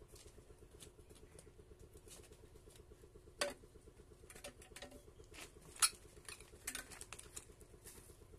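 A dog rummaging in a hole in soil and concrete: scattered scratches, clicks and rustles of dirt, the loudest about three and a half and six seconds in. A faint steady pulsing hum runs underneath.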